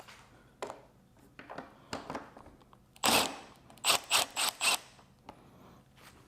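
Hand ratchet wrench working a bolt: a few light clicks of tool on metal, then one loud rasp about three seconds in and four quick ratcheting strokes just after.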